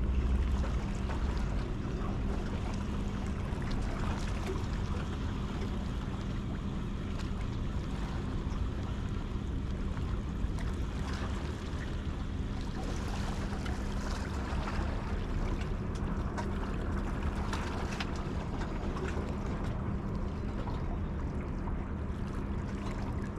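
Harbour waterside ambience: wind on the microphone and water lapping at the pier rocks, over a steady low drone, with a few small splashy clicks.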